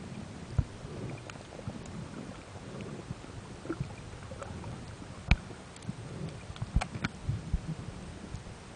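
Muffled low rumble of water heard through an underwater camera housing, with scattered sharp clicks and knocks: the loudest about five seconds in, then two close together near seven seconds.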